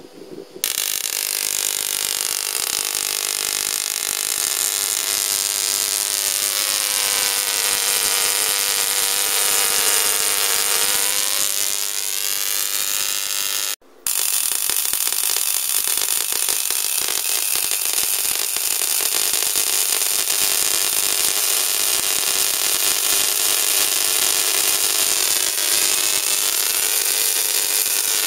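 Home-built Tesla coil firing successfully: a loud, continuous buzzing crackle of its sparks. It starts about half a second in, cuts out for a moment about 14 seconds in, then starts again.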